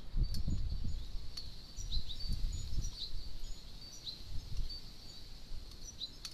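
European goldfinches at a seed feeder giving short, high chirping calls, several a second at times, with a few sharp clicks. An uneven low rumble runs underneath.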